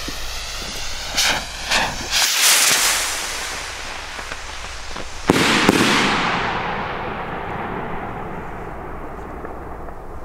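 Two Volador de Trueno salute rockets: hissing and a few sharp cracks in the first three seconds, then a very loud, dull bang about five seconds in that rolls away in a long echo.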